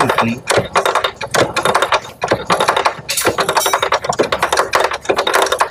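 Honda Grand single-cylinder four-stroke engine being turned over by hand on the kick-start lever, in repeated strokes with a dense clicking and clattering of the kick-start ratchet and gears. The engine is cranked without running, to check that the oil pump is driven and pumping.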